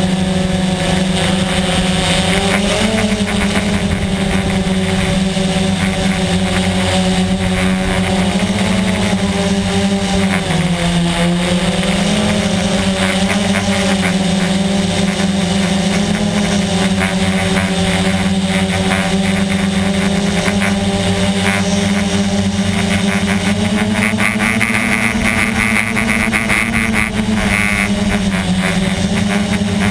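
QX450 quadcopter's electric motors and propellers buzzing steadily, heard close up from its onboard camera as it climbs. The pitch wavers with the throttle and dips briefly about ten seconds in.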